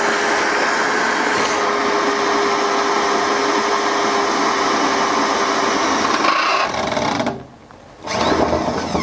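Cordless drill boring rivet holes through the thin sheet-metal tub of a wheelbarrow, running steadily under load for about seven seconds. It stops for about a second, then starts again near the end.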